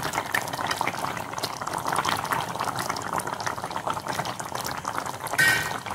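Coconut-milk fish stew simmering in a pan on a low flame, a dense crackle of small bubbling pops. A short ringing tone comes near the end.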